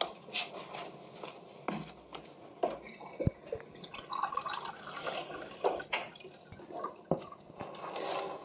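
Water running from a kitchen tap and filling a glass, with several sharp clinks and knocks of the glass against the bench.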